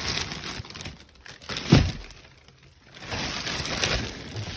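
Firework packaging being handled: rustling and crinkling in two stretches, with one loud thump a little under two seconds in.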